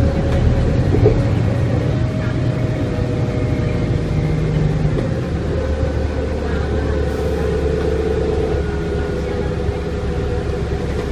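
Detroit Diesel Series 50 engine of a 1995 New Flyer D40LF bus running as the bus drives, heard from inside the passenger cabin: a steady low drone whose hum changes pitch about five seconds in and again a few seconds later.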